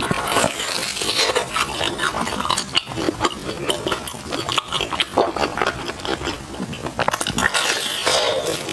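Close-miked chewing and mouth smacking on sticky glutinous rice food, a dense run of wet clicks and squelches with a few sharper clinks.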